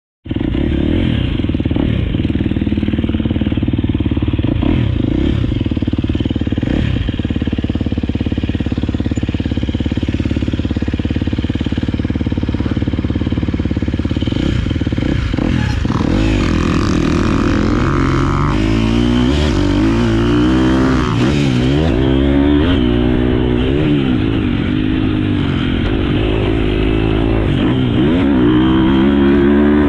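Husqvarna FC 250 four-stroke single-cylinder motocross bike engine running at a steady pitch, then revving up and down repeatedly from about halfway through.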